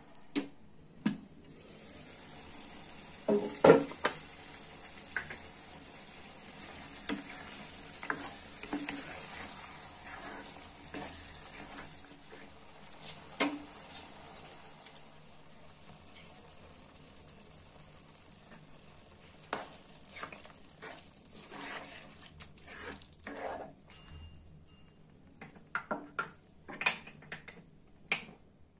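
Eggplant masala curry sizzling and bubbling in a nonstick kadai: a steady hiss, with a utensil knocking and scraping against the pan every few seconds. The loudest knock comes about four seconds in, and a quick run of knocks comes near the end.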